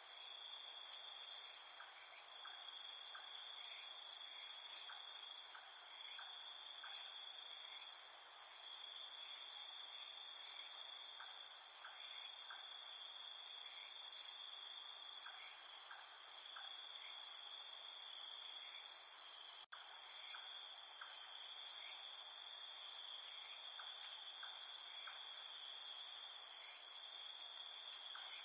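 Steady night chorus of crickets and other insects: two continuous high-pitched trills layered together, with faint short chirps beneath. The sound cuts out for an instant about two-thirds of the way through.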